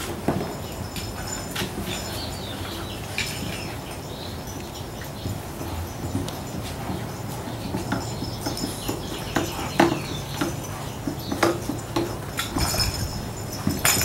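Yellow Labrador puppies moving about on a hard floor: scattered light clicks and taps of claws and paws, with a few sharper taps in the second half.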